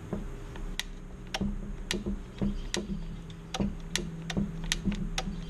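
A series of sharp metallic clicks, roughly two a second and unevenly spaced, from the chain brake mechanism of a Stihl MS 270 chainsaw being worked by hand during reassembly.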